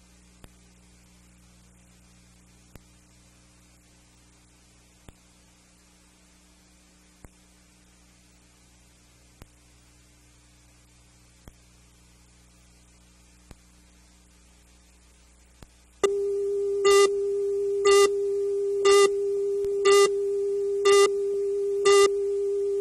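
Low steady hum with a faint tick about every two seconds. About 16 s in, a steady electronic test tone starts, with a short beep once a second over it, like a videotape's line-up tone and countdown.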